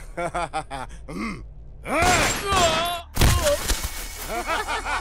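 A man laughing, then a drawn-out groaning cry, then a single loud pistol shot about three seconds in, followed by chuckling.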